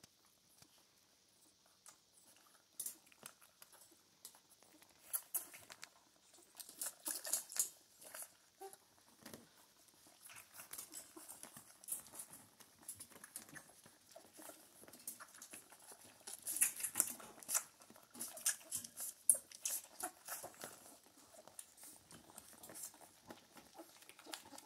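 A litter of puppies suckling at their mother: a faint, irregular patter of small wet smacking and clicking sounds, busiest a few seconds in and again past the middle.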